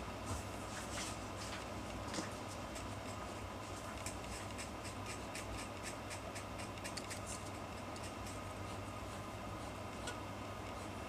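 Fine pen scratching across paper while inking a manga page: short, quick strokes, sparse at first and then a dense run of rapid strokes in the middle. A steady low room hum lies underneath.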